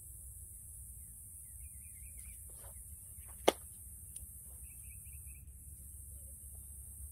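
Faint outdoor ambience: a steady low wind rumble on the microphone with a few faint chirps, broken once about three and a half seconds in by a single sharp click, the loudest sound.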